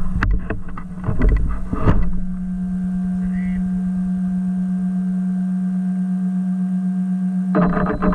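Traxxas MAXX electric RC truck driving: rattles and knocks over rough ground for about two seconds, then a steady, even hum for about five seconds, with the knocks and rattles returning near the end.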